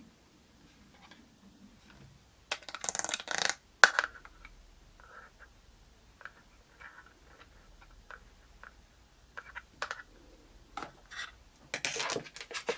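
Long gel-polished fingernails clicking and tapping against plastic nail swatch cards and product packaging. There is a quick flurry of clicks about two and a half seconds in, then one sharp loud click, scattered single taps, and another flurry near the end.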